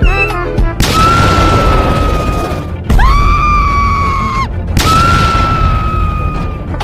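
Dramatic background music: three loud booming hits, each followed by a long held high note, coming about a second in, about three seconds in and near five seconds in.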